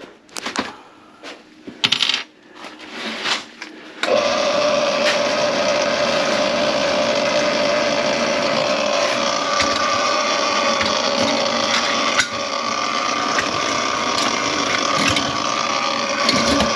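A few sharp clicks and knocks, then about four seconds in a small electric motor starts abruptly and runs steadily with a constant whine.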